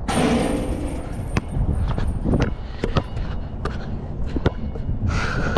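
Basketball dropping through a metal chain net, the chains jingling right at the start, followed by the ball bouncing on the court several times.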